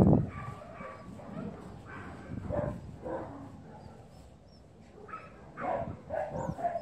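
A dog giving short barks, yips and whines in scattered bursts, busiest near the end, after a loud thump right at the start.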